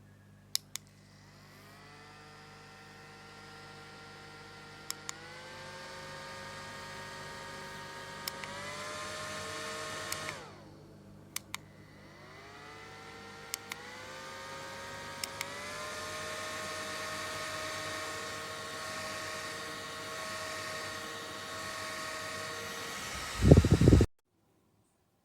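SmartDevil small USB desk fan's motor whirring with a whine, stepping up in pitch after each button click as it is switched to higher speeds. About ten seconds in it winds down as it is switched off, then spins back up and is clicked up through its speeds again. A loud thump near the end, then the sound stops.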